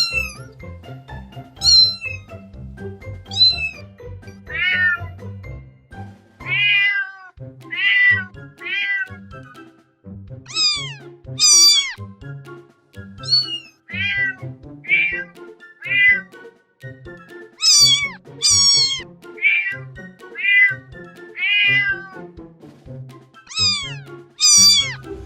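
Cats meowing again and again, about twenty short meows, most falling in pitch, over soft background music.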